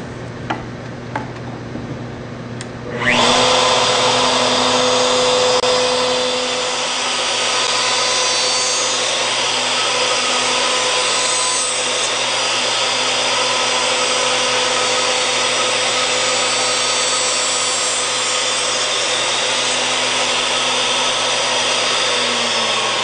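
A few light clicks over a low hum. Then, about three seconds in, an electric wood router comes on abruptly and runs steadily with a dense whine, making the final light pass of a scarf cut in spruce.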